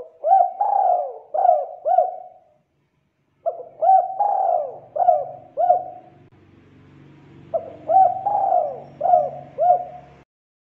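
Spotted dove cooing: three matching phrases of several coos each, about two and a half seconds long, with a short pause between phrases.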